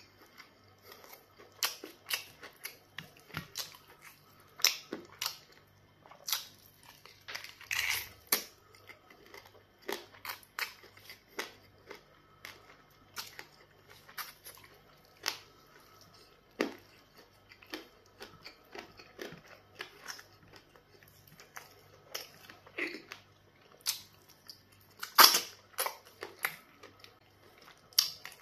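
Close-up eating sounds: wet lip smacks and chewing of pounded yam fufu and chicken in black soup, eaten with the fingers. Sharp, irregular smacks come about one or two a second, the loudest about 25 seconds in.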